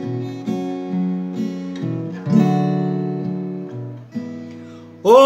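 Acoustic guitar strumming chords, changing about every half second, then letting a chord ring and fade away before the next one.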